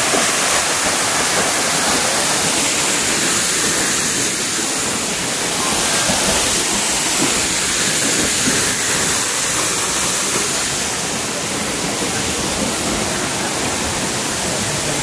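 Waterfall rushing steadily: a loud, even wash of falling water with no breaks.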